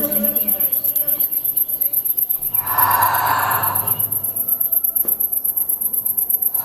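Insect, like a cricket, trilling steadily: a very high, fast, even pulsing. About three seconds in, a brief rush of noise sounds over it.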